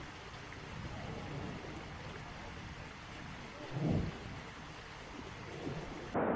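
Steady rushing noise with no clear pitch, a brief low thump about four seconds in, and a much louder rush cutting in suddenly just before the end.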